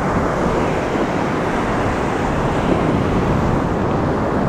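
Ocean surf washing and breaking, with wind buffeting the microphone: a steady rushing of water and wind noise.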